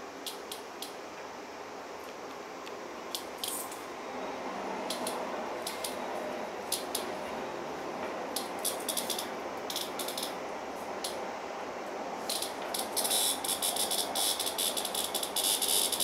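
A cicada giving short distress buzzes as a cat plays with it. The buzzes are scattered at first and come thicker and longer in the last few seconds.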